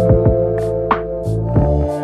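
Background music: sustained instrumental chords over a steady beat.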